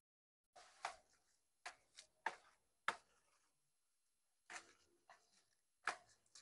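Grapevine leaves and shoots crackling and snapping as a hand works through the foliage, pulling them off. About ten sharp snaps come in irregular clusters.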